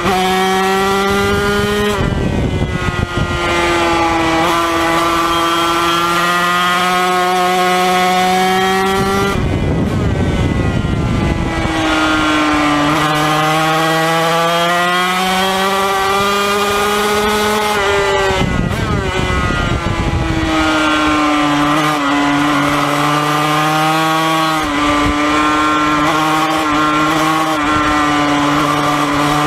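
Yamaha TZ250 two-stroke Grand Prix racing engine at high revs, heard onboard: a high, buzzing note held steady along the straights. Three times it breaks up and drops as the throttle is shut for a corner, then climbs back up.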